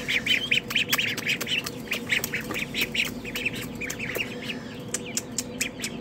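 Ducklings in a brooder peeping rapidly and insistently, several short high peeps a second, over a faint steady low hum. The keeper takes the calling to mean they have drunk their water dry and want more.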